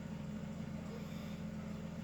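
A steady low machine hum, with a sleeping person's faint breath rising about a second in.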